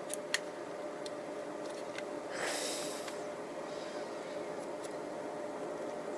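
Quiet handling of a small plastic model locomotive: a light click about a third of a second in and a soft, breath-like hiss around two and a half seconds in, over a steady low room hum.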